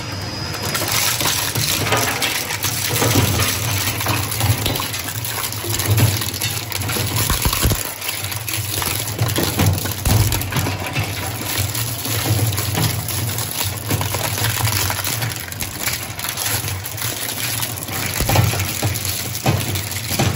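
Twin-shaft plastic shredder's cutter discs crunching and cracking hard plastic scrap, with a continuous clatter of breaking pieces over the steady low hum of the drive.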